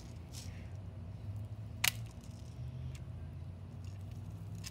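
A single sharp, double click from a Crosman .177 multi-pump air rifle about two seconds in, over a steady low background rumble.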